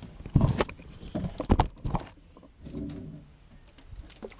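Knocks and thumps of a person moving about in a small boat: a quick cluster of sharp knocks in the first two seconds and a single one near the end.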